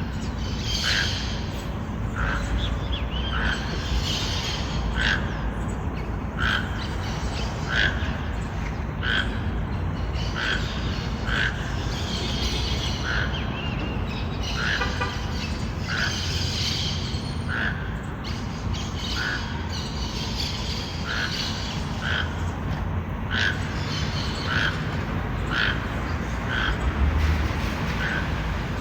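Toucan calling: a short, squawking call repeated at an even pace, about once every second and a half, over a steady low background rumble.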